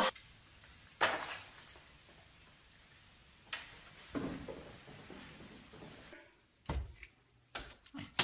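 A few scattered knocks and clicks, like household objects being handled, with quiet room noise between them.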